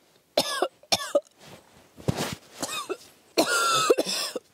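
A woman's voice coughing and gagging in a series of about five short bursts, the longest and loudest near the end: mock disgust after a sip of homemade wild tea.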